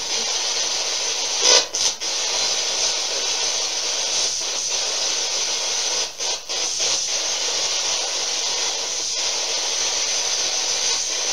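Spirit box static: a steady radio-sweep hiss from a ghost-box device, with a short louder burst about a second and a half in and brief breaks near two and six seconds in.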